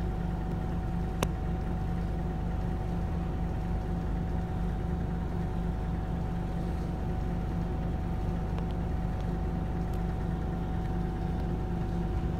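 Scania K280UB city bus's five-cylinder diesel idling steadily at a stop, heard from inside the cabin: a low hum with a thin steady whine above it. There is a single sharp click about a second in.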